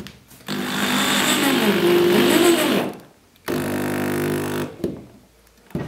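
Cordless drill driving a screw into the flange of a flush-mount rod holder on a polyethylene kayak, in two runs: a longer one of about two seconds whose motor pitch dips and rises again as the screw bites, then a shorter run of about a second. Two short clicks follow near the end.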